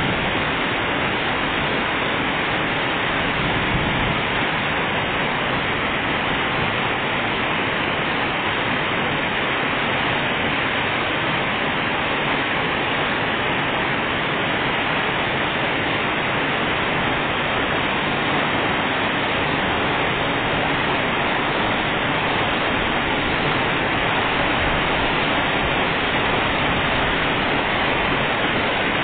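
Heavy tropical rain pouring down in a steady, unbroken downpour.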